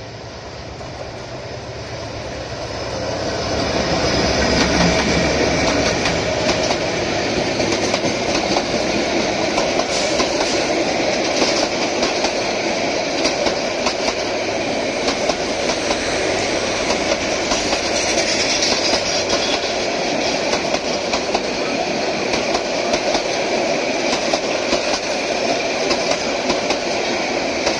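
Passenger train passing close by: the sound of the diesel locomotive and train builds over the first four seconds as it draws near, then holds as the coaches roll past with a steady rumble of wheels on rails and a clickety-clack over the rail joints.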